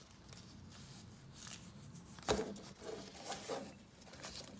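A sheet of paper rustling and creasing as it is folded by hand, with a sharper crackle about two and a half seconds in.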